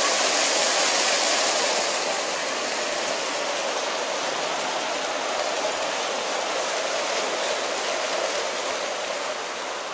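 Plaza fountain jets splashing steadily into their pool, a dense rushing wash of water that grows somewhat fainter after about two seconds.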